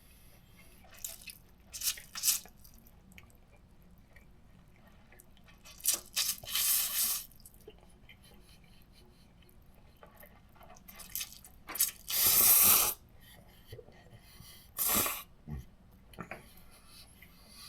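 Ramen noodles slurped in about four loud hissy bursts, the longest about a second, with quiet pauses between.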